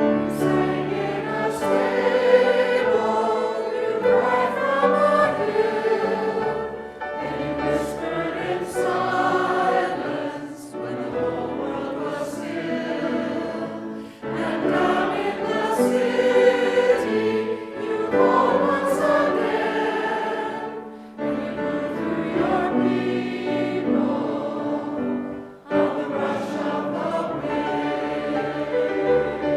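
A choir singing, in sustained phrases with short breaks between them.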